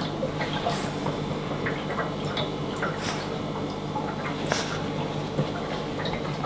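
French bulldog puppy snuffling close up, with a few short sniffs over a steady low hum.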